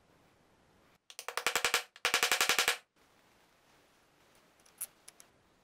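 Two quick bursts of rapid, evenly spaced clicking, about a dozen clicks a second, each lasting under a second, with a short gap between them; a few faint ticks follow near the end.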